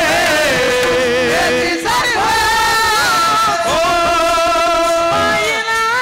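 Devotional kirtan singing: a voice holds long, ornamented notes of a Marathi abhang melody over a steady sustained instrumental drone, with a brief break about two seconds in.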